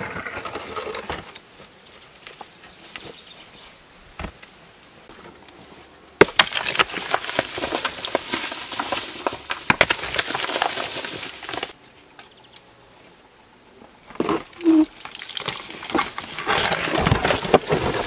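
Loose dirt, leaves and small stones being scraped and thrown off a rocky floor by hand, with stones clattering. There is a long spell of scraping and rattling from about six to twelve seconds in, and another near the end.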